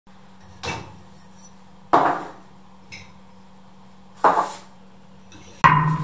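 Dishwasher wire racks and dishes clanking: four separate sharp clanks a second or two apart, each ringing briefly, over a faint steady hum. A low pulsing drone starts just before the end.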